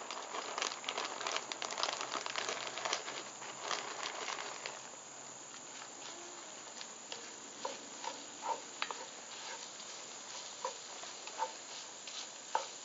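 Shredded hash brown potatoes hitting hot sausage fat in a cast-iron Dutch oven, sizzling and crackling as they are poured in and stirred with a wooden spoon. The crackle is densest for the first five seconds or so, then settles to a lower sizzle with a few scattered sharp ticks.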